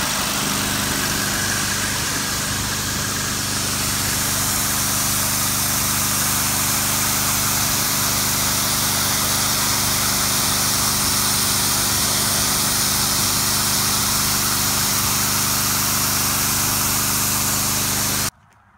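Generac 2500 PSI pressure washer's 6-horsepower Vanguard engine running steadily, with the hiss of the high-pressure spray jet blasting concrete. It cuts off suddenly near the end.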